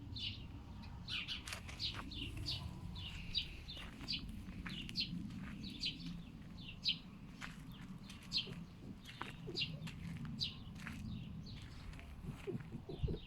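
Small birds chirping, short high chirps repeating two or three times a second over a low steady rumble.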